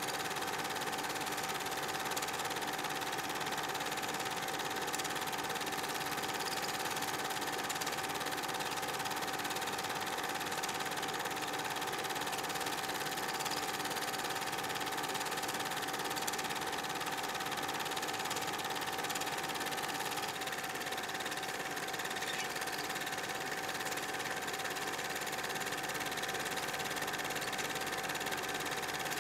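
Steady whirring and clatter of an 8 mm film projector running, with a constant held hum; the only soundtrack of silent home-movie footage transferred from film.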